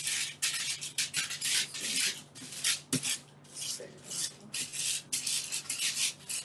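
Hands rubbing oil over butter paper lining a baking tray: a run of papery rasping strokes, about two or three a second, with a single knock about three seconds in.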